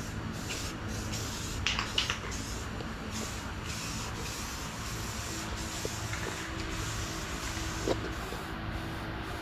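Aerosol spray paint can hissing in repeated short bursts as a bicycle frame is painted, with a few sharp clicks about two seconds in. A steady low hum runs underneath.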